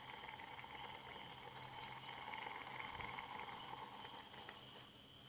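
Faint, quiet lakeside ambience at dusk: a soft steady hiss with a thin, high steady tone running under it.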